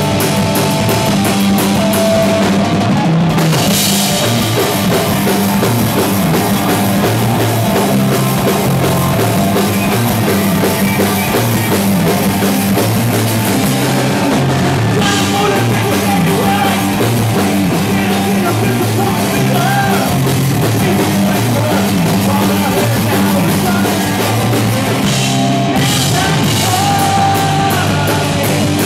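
Live rock band playing loud and full: electric guitar, bass guitar and drum kit with cymbals, the cymbals dropping out briefly a few times.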